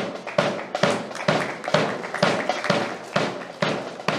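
Background music with a steady beat of sharp taps, a little over two a second.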